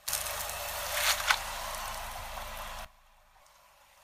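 A car tyre squashing a plastic bag of water beads on wet concrete: a steady wet squishing with two sharp pops a little after a second in as the bag gives way. The sound cuts off suddenly about three seconds in.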